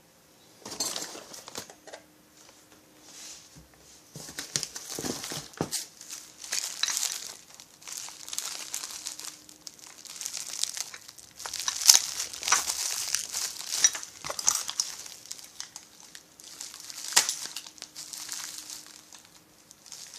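Plastic packaging crinkling in irregular bursts as chainsaw kit parts are unwrapped and handled, with a few sharp knocks.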